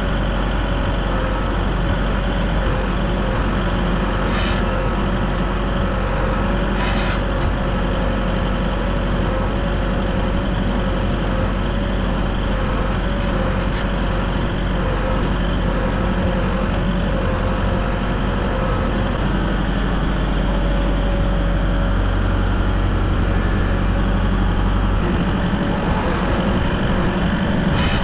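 Tractor engine running steadily at constant speed, its low note shifting about three seconds before the end.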